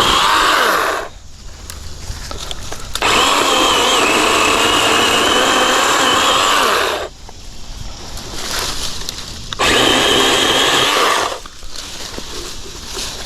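Craftsman V20 12-inch battery chainsaw run in three bursts, its motor and chain whining under load as it cuts through limbs, with short pauses between the bursts.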